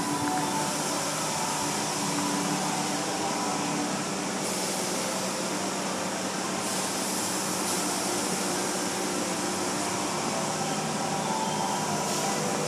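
Automatic car wash heard from inside the car: water spray hissing against the glass over the steady hum of the wash machinery, the hiss swelling and easing a few times.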